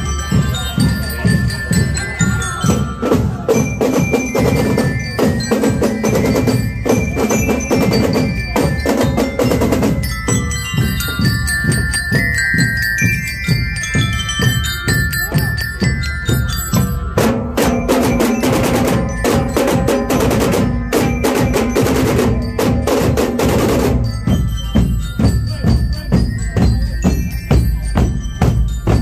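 Marching-band drum corps playing a steady march beat on snare and bass drums, with bell lyres ringing a melody over it. Past the middle, the drumming turns denser for several seconds.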